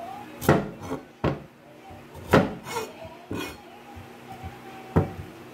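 Large kitchen knife chopping through a peeled sweet potato, each cut ending in a sharp knock on the cutting surface: about seven irregular strikes, some harder than others.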